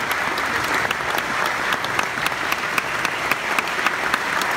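Large theatre audience applauding: a dense, steady mass of clapping.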